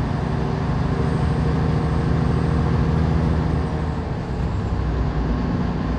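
Semi truck's diesel engine running steadily, a low hum heard from inside the cab.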